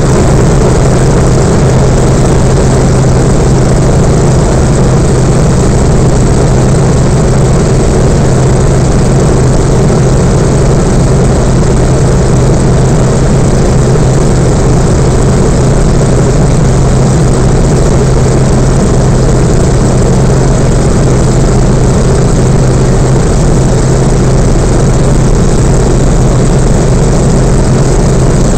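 Yak-52's nine-cylinder M-14P radial engine and propeller droning steadily and loudly in flight, heard from inside the cockpit, with a strong low hum and no change in pitch.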